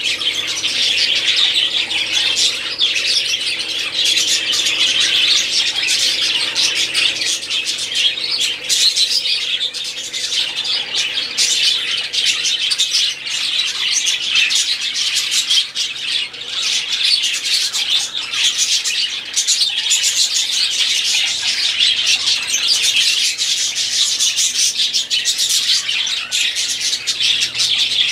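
Several budgerigars chattering and warbling nonstop, many high chirps and squawks overlapping.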